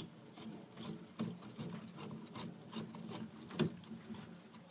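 A screwdriver backing long Phillips screws out of a streetlight's light-socket housing, with small irregular clicks and scrapes of the tool turning against metal.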